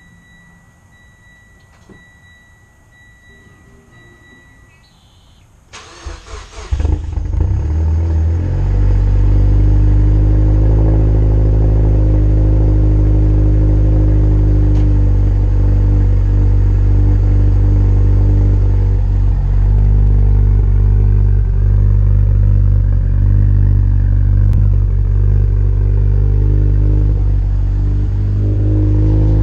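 Mitsubishi Lancer Evolution X's turbocharged 2.0-litre four-cylinder being started: a car's warning chime beeps for the first few seconds, the starter cranks briefly about six seconds in, and the engine catches and settles into a loud, steady idle.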